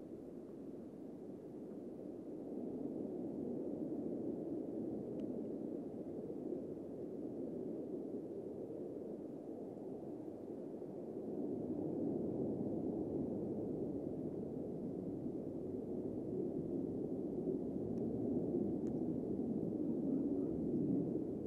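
Distant low rumble of two F/A-18 Super Hornet jet fighters on a low pass, a steady noise without any clear pitch that swells louder twice, the second time about halfway through and strongest near the end.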